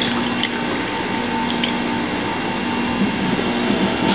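Electric centrifugal juicer running steadily, its motor and spinning mesh basket giving an even hum, with juice trickling from the spout into a bowl.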